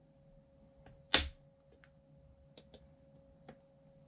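Hand tools working at a suspension seatpost: a few faint ticks and clicks, with one sharp click about a second in.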